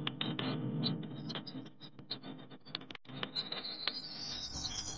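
Faint, irregular clicks and crackles, several a second, over a low hiss.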